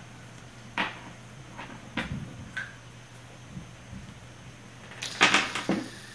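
An ice cube knocking and skidding on a hardwood floor as a puppy paws and noses at it: a few scattered clicks, then a louder cluster of knocks near the end.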